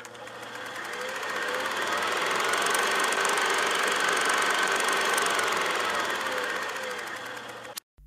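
Intro sound effect for an animated logo: a dense rattling noise with faint sliding tones in it. It swells up over the first few seconds, fades back down and cuts off abruptly shortly before the end.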